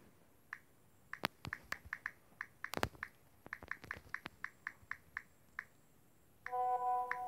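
Phone on-screen keyboard clicking with each key tap, a quick irregular run of clicks as a message is typed. Near the end, a message notification chime of a few steady notes rings out as a new message arrives.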